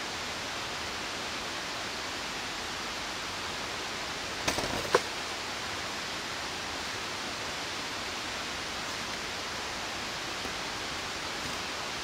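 Steady rushing noise of a waterfall. About four and a half seconds in, a short cluster of knocks, the sharpest and loudest just before the five-second mark.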